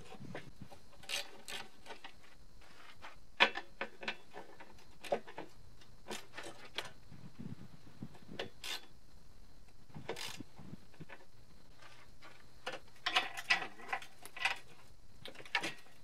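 Scattered clicks and knocks of hand-tool work on a portable generator's steel frame and the plywood bench, with short runs of a socket ratchet clicking; the clicks come thickest in a quick cluster near the end.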